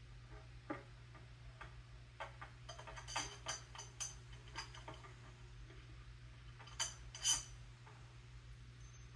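Faint, scattered clicks and taps of step-stool parts being handled and fitted together during assembly, busiest in the middle and loudest in a pair of sharp clicks about seven seconds in, over a steady low hum.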